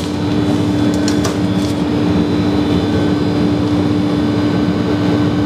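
Steady machine hum with a constant low drone, from the kitchen equipment running in a gelato lab. A few faint light taps come about a second in.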